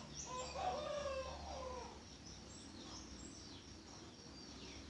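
A chicken calling once, a wavering call that lasts under two seconds near the start, with small birds chirping now and then.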